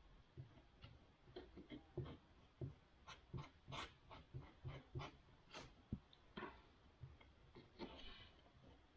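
Faint, irregular scraping and tapping of a small tool stirring sawdust and glue into a wood-filler paste on a wooden board, with a few louder scrapes near the middle.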